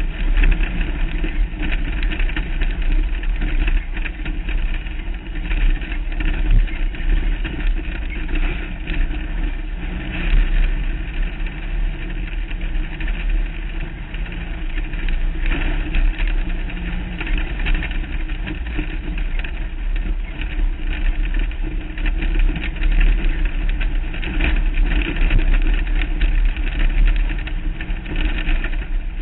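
Off-road race car's engine running hard at speed, heard from a hood-mounted camera, with a constant heavy low rumble of wind and rough ground on the microphone.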